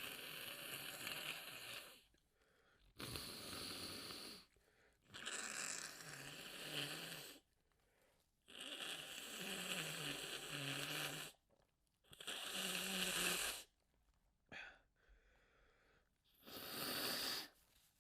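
A person blowing their nose hard, in about seven separate blows of one to three seconds each with short pauses between, one of them very brief.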